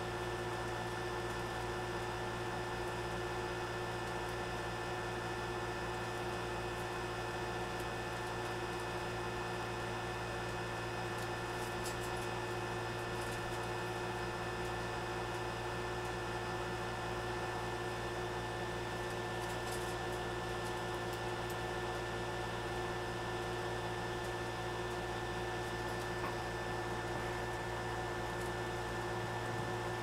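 A steady machine hum made of several fixed tones, like a fan or appliance running in a small room. Faint high ticks come in about twelve and again about twenty seconds in.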